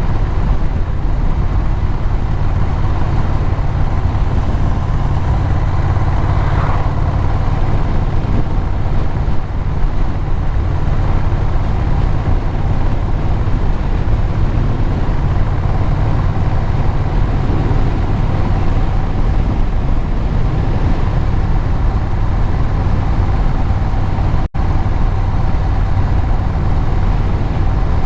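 Vehicle engine running at a steady cruise with road noise while riding. The sound cuts out for an instant about 24 seconds in.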